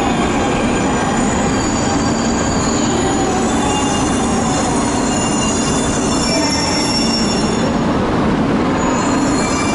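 E2 series Shinkansen train moving slowly along the platform with a steady rumble and hiss. Thin, high metallic squealing tones run through the middle of it.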